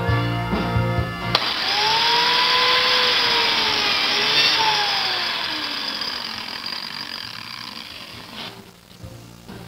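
Biscuit joiner switched on and plunged to cut a biscuit slot in a cabinet rail: it starts abruptly about a second and a half in, its motor whine rising and then falling, and winds down over several seconds.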